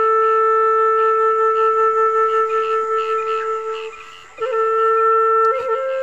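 Background music on a flute-like woodwind playing long held notes. It fades briefly about four seconds in, then comes back on a slightly higher note and steps up once more.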